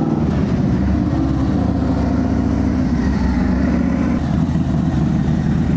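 Harley-Davidson Low Rider ST's Milwaukee-Eight 117 V-twin running loudly at fairly steady revs on a chassis dyno.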